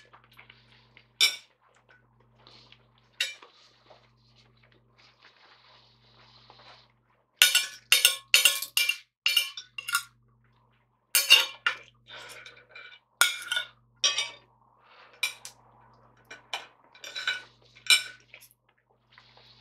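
Knife and fork clinking and scraping against a plate while food is cut, as scattered sharp clinks that come in quick clusters, the busiest about halfway through.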